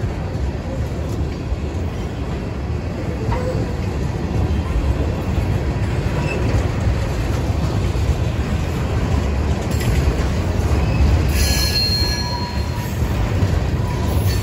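Freight train cars rolling past with a steady low rumble of wheels on rail. A brief faint, high wheel squeal comes about eleven seconds in.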